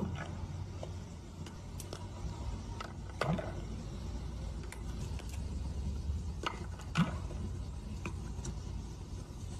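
Stones dropping one by one into a glass jar of water as a raven raises the water level: three louder knocks with a short plunk, near the start, about three seconds in and about seven seconds in, among lighter clicks against the glass, over a low steady rumble.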